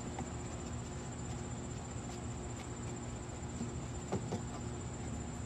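Insects trilling in a steady, high-pitched, unbroken drone, with a faint knock about four seconds in.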